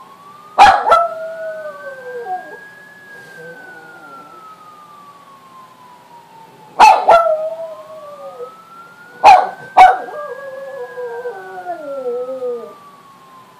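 Small long-haired dog howling along with a siren: three bouts, about half a second, seven and nine seconds in, each opening with two sharp yips that slide into a falling howl. Underneath, the siren wails slowly, its pitch rising and falling over about seven seconds.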